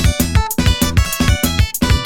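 Tsapiky music: quick plucked guitar lines over a fast, steady drum beat.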